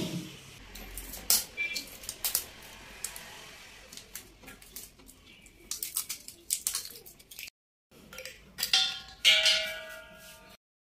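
Scattered clicks and knocks from a hand working the plastic safety cap off the valve of a red LPG cooking-gas cylinder. Near the end there is a brief pitched sound.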